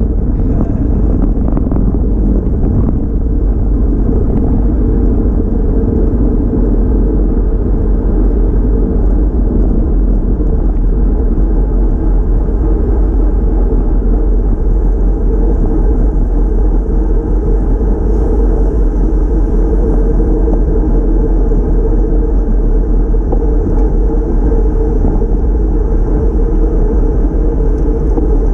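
Steady low wind rumble buffeting the microphone of a handlebar-mounted camera on a road bike moving at speed.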